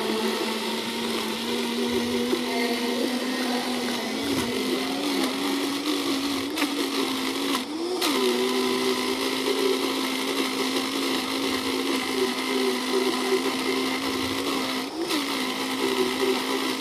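Vitamix high-powered blender running steadily, churning a thick banana-and-date ice cream mixture while the tamper pushes it down into the blades. The motor's pitch rises briefly a few times as the load on the blades shifts.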